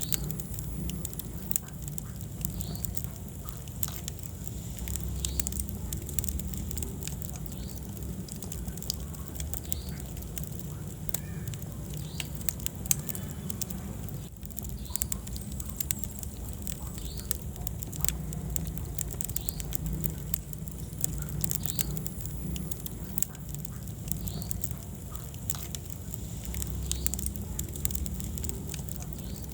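Wood fire in a fireplace crackling, with frequent sharp pops and snaps over a low, steady rumble of burning flames.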